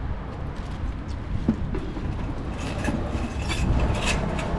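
A plastic bag crinkling as it is handled and opened, with a cluster of sharper crinkles about three to four seconds in, over a steady low background rumble.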